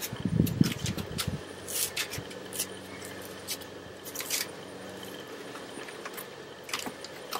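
Small objects being handled by hand: a scatter of light clicks and rustles, about half a dozen, with a muffled low rumble in the first second.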